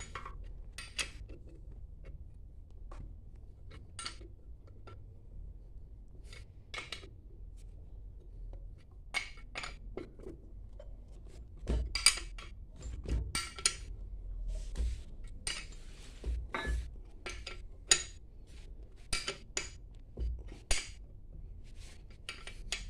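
Metal tools and pump parts clinking and knocking against each other while a booster water pump is being reassembled, in irregular sharp clicks that come thicker and louder in the second half, with a faint low hum underneath.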